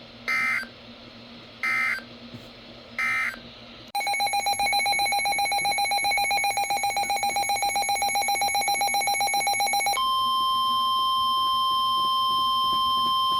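Emergency Alert System data bursts: three short electronic screeches about a second and a half apart, marking the end of the previous message. About four seconds in, a loud, rapidly pulsing electronic alert tone starts. About ten seconds in it switches to a steady single-pitch warning alarm tone, the NOAA Weather Radio attention signal that comes before the next warning.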